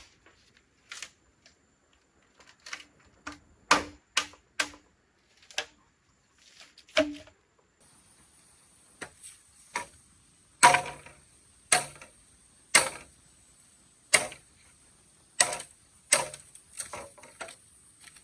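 A series of sharp, irregular clicks and knocks, one every half-second to a second or so, with a faint steady high hiss coming in about halfway through.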